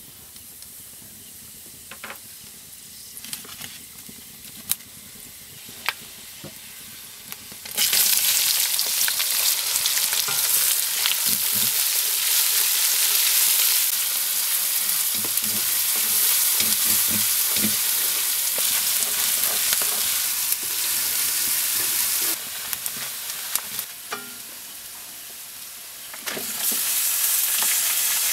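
Sliced onions and spices frying in hot oil in a steel wok over a wood fire, stirred with a spoon. For the first eight seconds only a few clinks are heard over a faint sizzle; then a loud sizzle starts as the onions go in. It drops for a few seconds near the end, then rises again as mutton pieces are added and stirred.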